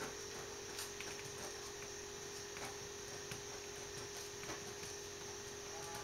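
Pen writing on paper: faint scratching and small irregular ticks of the strokes over a steady low hum.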